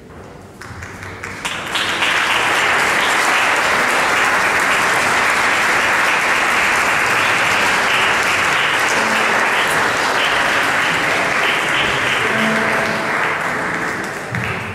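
Audience applauding: the clapping builds up over the first two seconds, holds steady, and dies away near the end.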